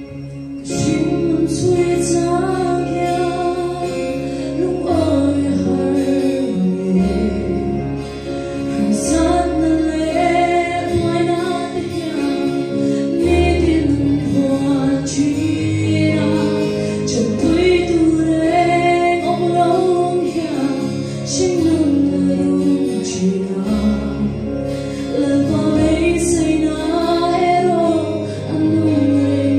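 A woman singing a Mizo gospel song solo into a microphone over steady instrumental accompaniment; her voice comes in about a second in.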